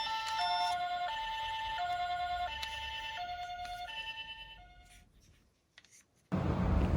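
Toy ambulance's electronic two-tone hi-lo siren, alternating between a lower and a higher note about every two thirds of a second, then fading out. After a short silence, a loud noise starts abruptly near the end.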